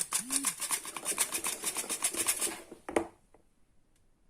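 Hand-operated flour sifter being worked, a fast, even mechanical clicking as flour is sifted into cake batter. It stops just under three seconds in with a single knock.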